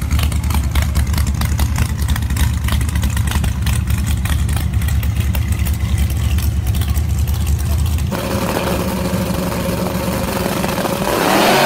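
Drag-racing car engines running at idle with a strong low pulsing at the starting line. About eight seconds in, the sound changes abruptly. Near the end the engines rev up, rising in pitch, as the cars launch.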